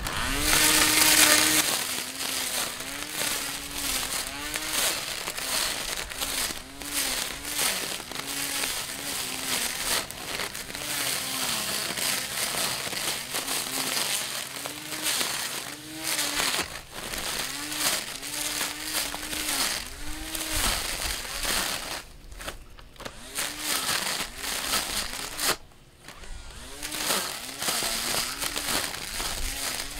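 Elecicopo 21V cordless trimmer's electric motor whining as its metal blade cuts tall grass. The whine sags and recovers about once a second as the grass loads the blade, over a steady rattling hiss of cut grass. It eases off briefly twice near the end.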